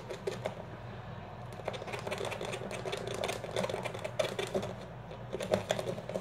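Runny homemade slime, just thinned with activator and baby oil, being mixed and squished: a rapid, irregular run of small wet clicks and pops.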